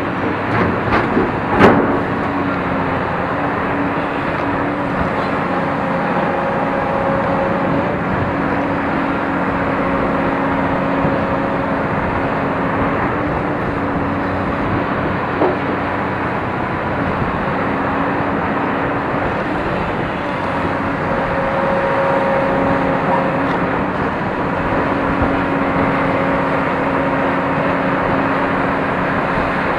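Caterpillar 349 hydraulic excavator working: the diesel engine runs steadily under load while hydraulic whine tones come and go as the boom swings and the bucket digs and dumps soil. A few sharp knocks about a second and a half in.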